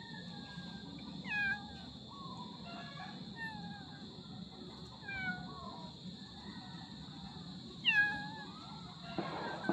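Tiny kittens mewing, short high calls that fall in pitch, repeated every second or two, the loudest one near the end.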